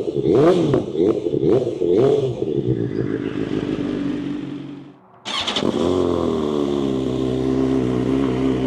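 BMW S1000XR's inline-four engine through an Akrapovic full titanium exhaust, revving in a quick run of rising and falling blips, then fading away. After a sudden break about five seconds in, it runs steadily at an even speed.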